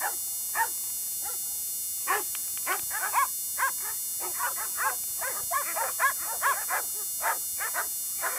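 A dog whining and yipping: many short, high calls that rise and fall in pitch, coming in irregular bunches.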